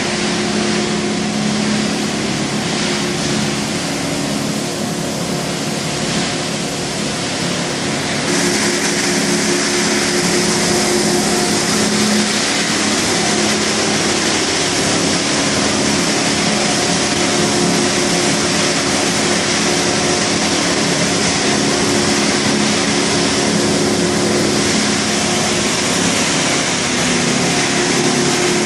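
Industrial machinery running steadily: a constant machine hum over broad noise, with a high hiss that comes in about eight seconds in and holds.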